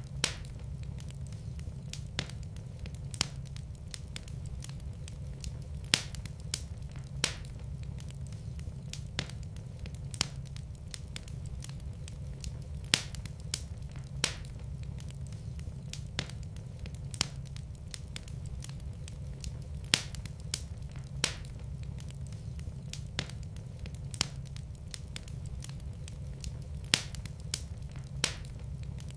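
Wood fire burning in a fireplace: a steady low rumble of the flames with irregular sharp crackles and pops, a few much louder than the rest.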